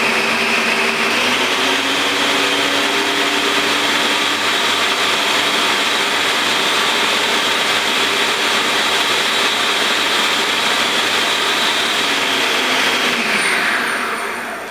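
Electric kitchen blender running at a steady high speed, blitzing olives, garlic, parmesan and oil into a smooth olive paste. The motor winds down near the end as it is switched off.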